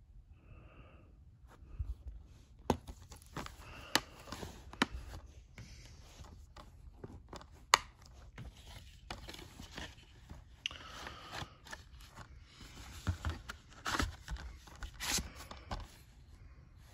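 Plastic Blu-ray case being handled: a run of sharp clicks and snaps, the loudest about 7.5 seconds in as the case is shut, then cardboard rubbing and scraping against plastic as the slipcover is slid back over the case.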